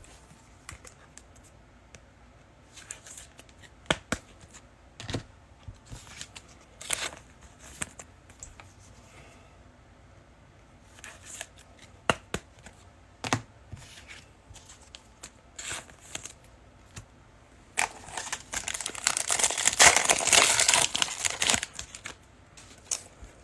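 Trading cards being handled with scattered light clicks and rustles, then a trading-card pack wrapper being torn open and crinkled for a few seconds near the end.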